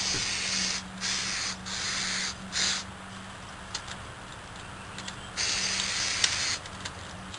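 Aerosol can of silicone lubricant spraying in short hissing bursts: four quick sprays in the first three seconds, then a longer one about five and a half seconds in.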